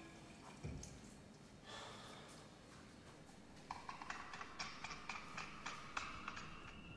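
Faint hand-washing at a basin: a low thump near the start, then tap water running over hands, with a quick run of small splashes and drips in the second half.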